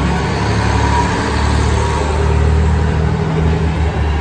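JR Kyushu KiHa 200 diesel railcar's engine running with a steady low drone.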